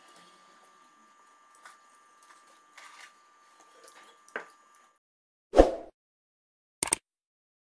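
Faint rustling and light ticks of hands picking through herbs and leaves in bowls, then a subscribe-button sound effect: one loud short swoosh a little over half-way and a sharp click near the end.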